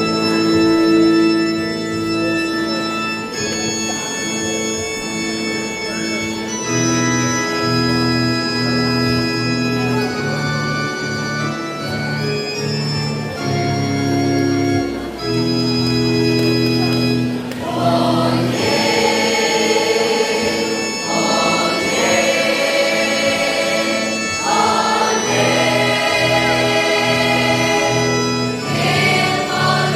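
Slow organ-style keyboard chords held as an introduction, then a mixed-voice choir comes in singing over them a little past halfway.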